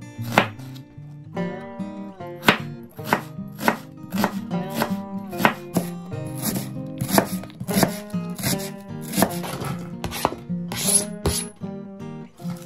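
Knife chopping food on a cutting board, sharp strokes about two a second, over steady background music.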